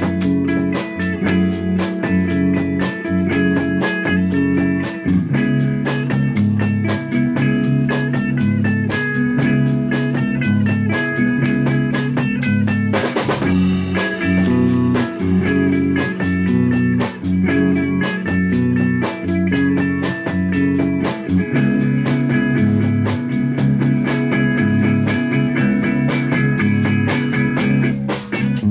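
Rock band playing an instrumental passage: electric guitar and bass over a steady drum beat, with a brief wash of noise about halfway through.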